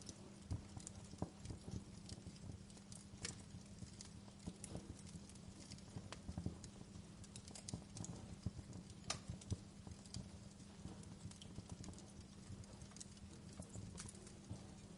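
Wood fire crackling in a fireplace: irregular snaps and pops, some sharper than others, over a low steady hum.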